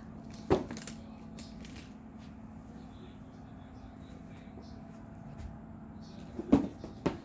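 Handling noise as a patent leather handbag and the camera are moved about: a sharp knock about half a second in, a few faint light clicks soon after, and two sharper knocks near the end, over a steady low hum.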